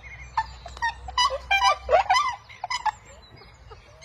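Inca terns calling: a quick run of squawking calls crowding over one another for about two and a half seconds, loudest near the middle, with fainter short calls of other birds around them.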